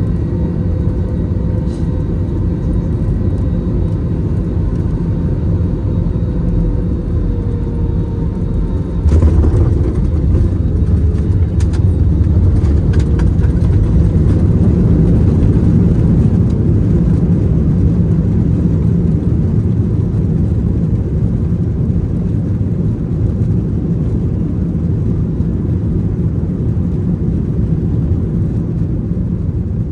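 Airbus A321 landing, heard from inside the cabin by the window: steady engine and airflow rumble with a faint falling whine, then about nine seconds in a sudden jump to a louder, deeper rumble with a few knocks as the wheels touch down and the jet rolls out on the runway, easing off near the end.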